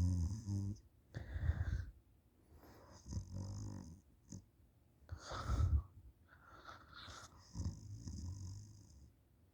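A person snoring in deep sleep, lying on their back with the mouth wide open: a buzzing, rattling snore followed by a louder breathy puff, repeating in a slow rhythm about every four seconds.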